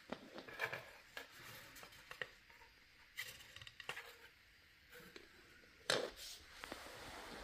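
Faint, irregular light taps, ticks and scrapes on cardboard as a play string is drawn over the rim of a cardboard box holding a resting cat, with one sharper knock about six seconds in.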